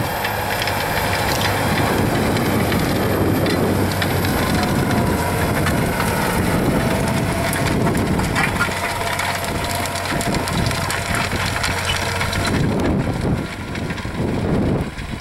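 Fendt tractor engine running under load as it pulls a Pöttinger tillage implement through corn-stubble ground, with the implement's crunching and rattling over soil and stalks. The sound drops noticeably near the end.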